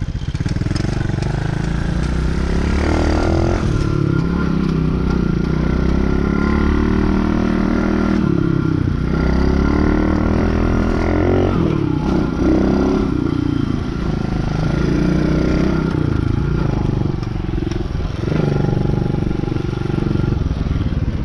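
Small dirt bike engine under way, revving up and shifting several times: its pitch climbs and then drops with each gear change.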